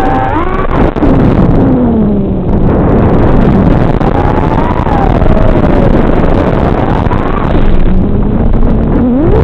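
FPV racing quad's brushless motors and props whining under a rushing noise, the pitch sweeping up and down again and again with the throttle, with a deep drop and a sharp climb near the end; the sound is dull and thin, as if cut off above the midrange.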